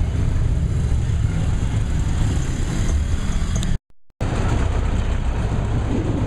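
Steady low engine and road rumble heard from inside a moving passenger vehicle in traffic. It cuts out completely for a moment about four seconds in, then carries on.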